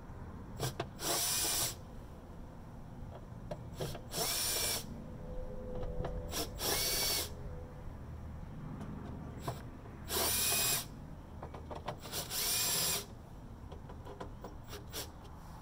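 Cordless drill/driver running in six short bursts of under a second each, backing out the screws that hold the front cover of a solar inverter, with light clicks of handling between the runs.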